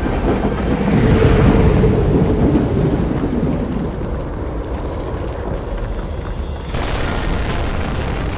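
Deep rolling rumble mixed with hissing noise, swelling over the first couple of seconds and then slowly dying away; a second surge of hissing noise comes in near the end.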